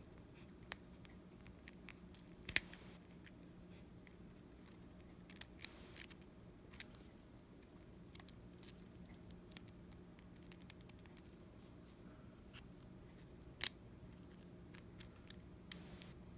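Scattered small sharp clicks and taps of hand tools working on an iPhone 8 Plus during a screen replacement, the loudest about two and a half seconds in and again near the end, over a faint steady hum.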